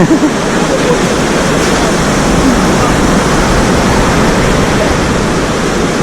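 Ocean surf washing onto the beach: a steady, loud rushing noise.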